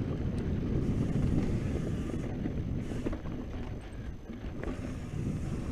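Wind buffeting the microphone and mountain bike tyres rumbling over a dirt singletrack at speed, with a few faint clicks from the bike.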